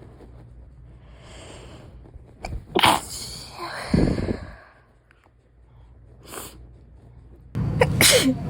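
Sneezing: a breathy intake of breath, then a loud sneeze about three seconds in. Near the end another sharp sneeze comes over a louder steady background hum.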